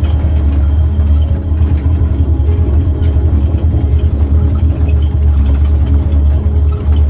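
A vehicle engine running steadily, a deep low hum with a fast flutter in its loudness.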